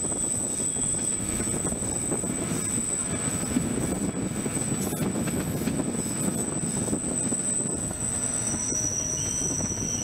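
Bernina Railway train running on the Brusio spiral: a steady rumble with thin, steady high-pitched wheel squeal, a second squeal tone joining near the end.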